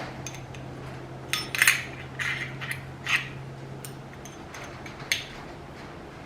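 Metal clicks and clinks of the guard on a small pneumatic cutoff tool being handled and repositioned, several separate knocks a second or so apart.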